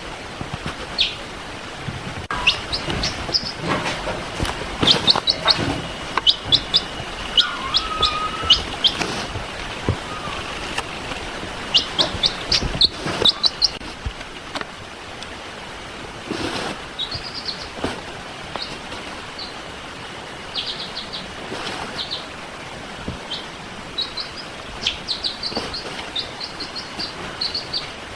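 Baby chicks peeping: short, high chirps in quick runs of several at a time, with brief gaps between the runs, over a steady background hiss and a few soft knocks.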